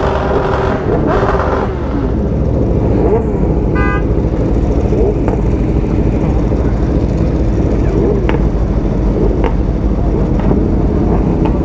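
Several superbike engines running together, a deep, continuous exhaust rumble with repeated throttle blips that rise and fall in pitch. A short horn toot sounds about four seconds in.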